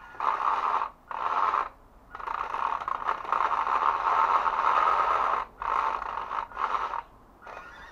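WPL B-1 1/16-scale RC truck's electric motor and geartrain whirring with a rattle, in five throttle bursts, the longest lasting about three seconds, as it strains against a brick step without getting up it.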